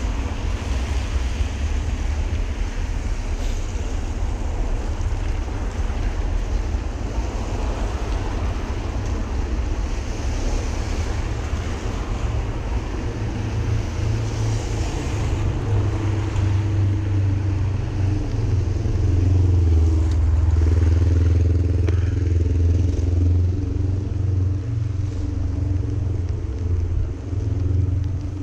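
Street traffic with a steady low rumble, and a motor vehicle's engine running close by from about halfway through, loudest a few seconds later.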